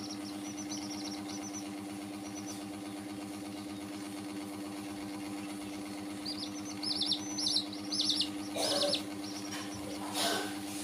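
Young domestic chicks peeping: groups of short, quick, falling high chirps, at the start and again from about six seconds in. A steady low hum runs underneath.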